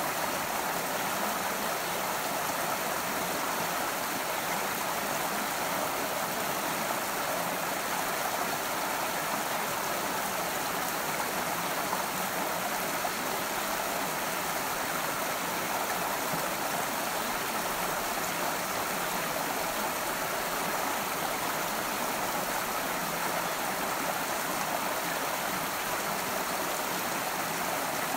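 Forest stream running over rocks: a steady, even rush of water with no breaks or changes.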